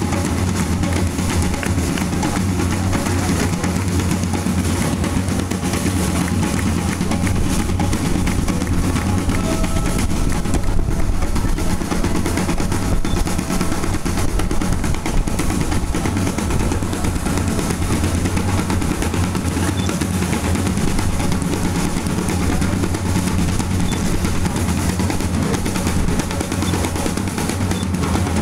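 Ensemble of drummers on strapped drums playing a steady, unbroken rhythm.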